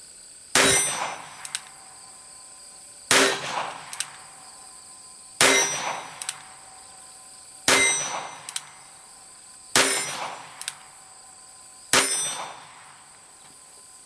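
Six single gunshots from a Ruger Single Six .22 rimfire single-action revolver, fired slow and evenly about two seconds apart to empty the cylinder. Each shot is a sharp crack with a brief ringing tail, and a smaller click follows most of them.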